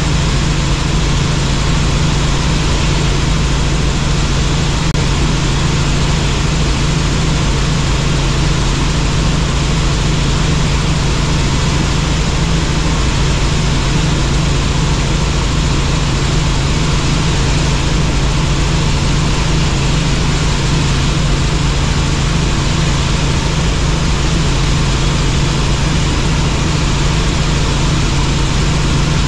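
Helicopter in flight: a steady, loud engine and rotor noise, a strong low hum under an even rush, unchanging.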